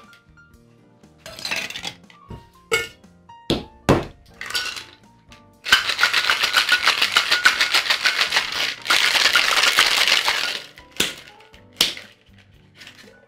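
Ice and metal tins of a two-piece Boston shaker clinking and knocking as it is loaded and sealed, then about five seconds of ice rattling hard in a fast, even rhythm as the shaker is shaken. Near the end come two sharp knocks on the tins, the shaker being struck to break its seal.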